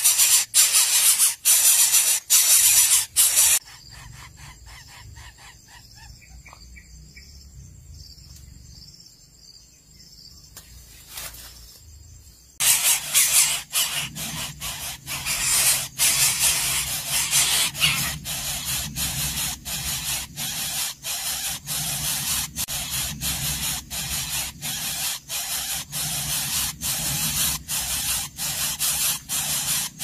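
Greater coucal nestlings begging at the nest: a rapid run of harsh, hissing rasps. They fall to a faint stretch for several seconds and start up loudly again about twelve seconds in.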